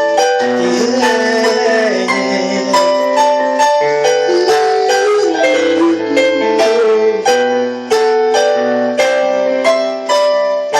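Instrumental piano interlude with no singing: chords and melody notes struck in a steady rhythm.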